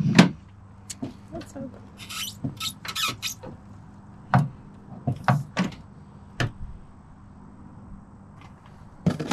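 Swagman e-bike hitch rack parts of metal and plastic being handled and fitted: scattered knocks and clicks, with a couple of short scraping rasps about two to three seconds in.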